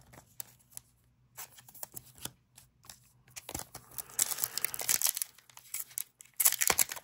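Sparse light clicks of card handling at first, then from about four seconds in a Disney Lorcana foil booster-pack wrapper crinkling and tearing, loudest near the end.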